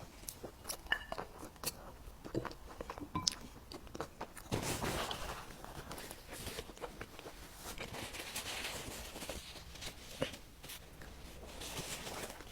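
Someone eating close to the microphone: scattered small clicks and bites in the first few seconds, then a denser stretch of chewing noise from about four and a half seconds in.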